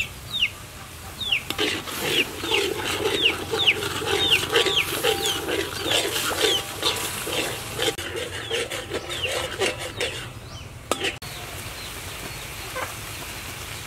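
Many rapid, high, descending bird chirps over the scrape of a spatula stirring sauce in a wok. About eleven seconds in, the sound changes abruptly to a steady hiss of the coconut-milk sauce simmering.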